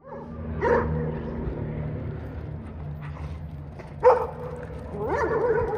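A dog barking and whining in a few separate calls: a short one about a second in, a sharp bark with a held whine about four seconds in, which is the loudest, and a run of whines near the end, over a steady low hum.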